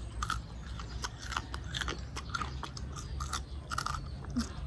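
Close-miked chewing and mouth sounds of a person eating, with many short, irregular wet clicks.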